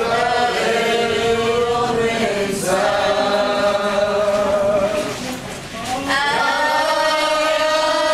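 A crowd of many voices singing together in unison in long held phrases, with a short pause about five and a half seconds in before the next phrase begins.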